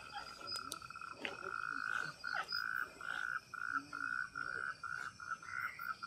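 A night animal calling: one high note held for about two seconds, then broken into a quick run of short, evenly repeated notes, about three a second.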